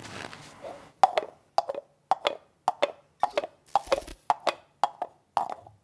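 Two coconut shell halves knocked together in a clip-clop rhythm to imitate a horse's hooves: paired hollow knocks, about two pairs a second, starting about a second in.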